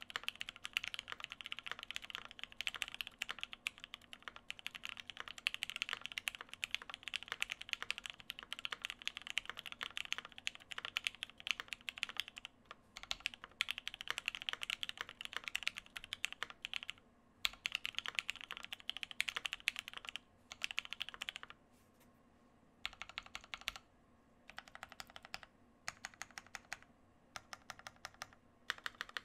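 Typing on an E8.5 mechanical keyboard with lubed, filmed Gateron Black Ink linear switches in a polycarbonate plate and GMK keycaps. Fast, continuous keystrokes with a few short pauses, then from about two-thirds in, shorter bursts of typing separated by gaps.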